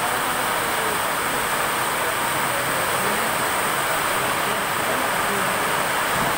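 Heavy monsoon rain falling steadily on a station platform and tracks, an even, unbroken hiss.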